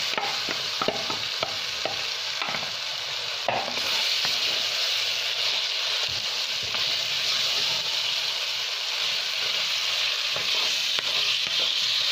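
Marinated chicken sizzling in hot oil and masala in a clay pot, stirred with a wooden spatula that clicks and scrapes against the pot during the first few seconds. The sizzle grows louder about three and a half seconds in.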